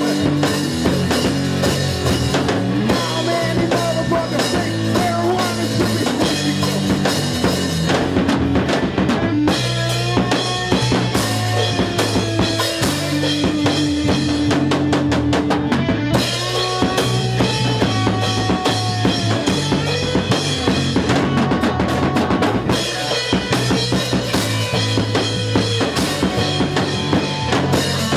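Live rock band playing loudly with no vocals: a drum kit with bass drum and snare keeps a steady beat under electric guitars holding sustained notes.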